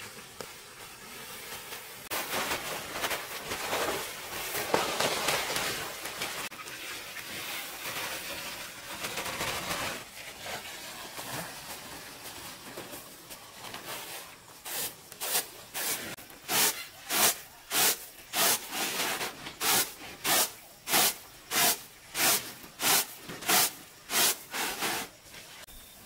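Rice grain being worked in a round flat winnowing tray: even swishing strokes of the grains, about one and a half a second, for some eleven seconds. Before that comes an uneven rustling of a plastic tarp with dry grain sliding on it.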